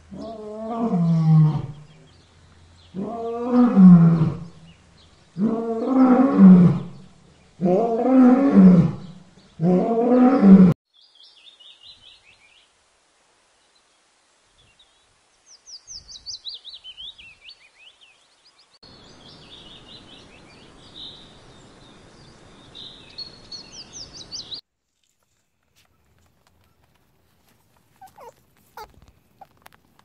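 Tiger roaring five times, about two seconds apart, each call sliding down in pitch. After it, small birds chirp, with a run of quick falling chirps and a faint steady hiss under the later chirping.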